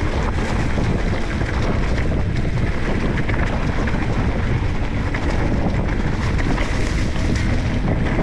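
Steady wind rush on the microphone while a mountain bike rides fast over a rough trail, with many small rattles and knocks from the bike over the ground.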